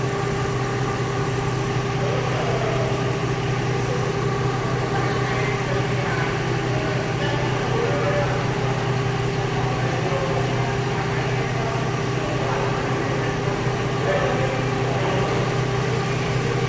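Steady machinery hum with constant pitch, holding an unchanging drone with a few fixed tones. Faint voices are heard in the background.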